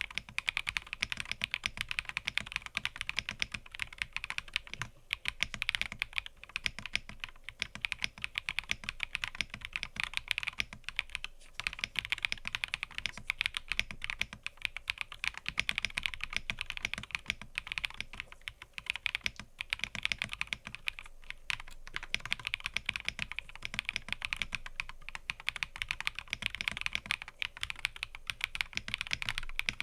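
Continuous, fast typing on a mechanical keyboard: a dense stream of key clicks and clacks, with a few brief pauses.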